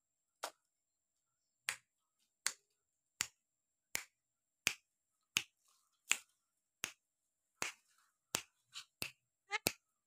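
Caged Javan myna making a series of short, sharp clicks, about one every 0.7 seconds, coming closer together near the end.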